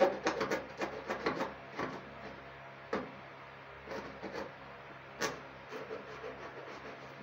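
Screwdriver scraping and jabbing at a small cardboard box to cut it open: a quick run of scratchy strokes on the cardboard and tape at first, then occasional single scrapes, the loudest about five seconds in.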